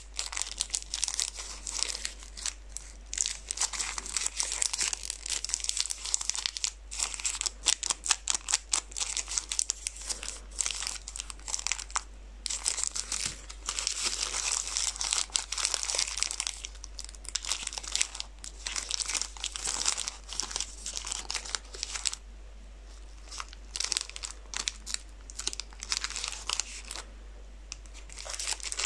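Plastic candy-bar wrappers of Milky Way and Snickers bars crinkling and crackling as hands squeeze and turn them, in bursts with a few short lulls.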